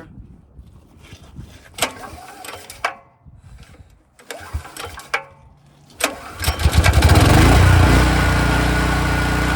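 Gasoline engine of an engine-drive welder/generator being started for the first time after its carburetor was rebuilt. It cranks and catches about six seconds in, runs at its loudest for a moment, then settles into a steady run. Before that come a few sharp clicks and knocks.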